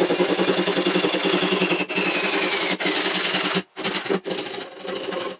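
Japanese handsaw cutting through wood, sped up so that the rasping strokes come in a fast, even rhythm. The strokes break off about three and a half seconds in and go on quieter and less regular.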